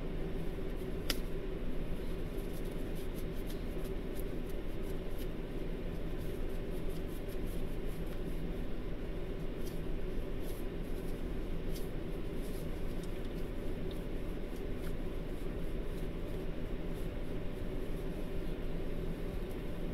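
Steady low hum inside the cabin of a stationary car, with faint scattered ticks.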